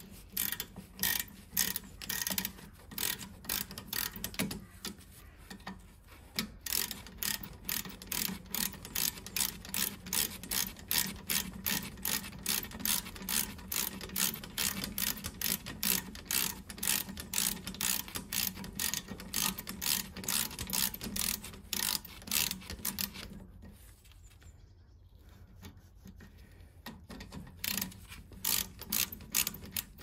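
Ratchet wrench clicking steadily, about three clicks a second, as it backs out a 13 mm brake caliper guide bolt. The clicking stops about 24 seconds in, then comes back briefly near the end.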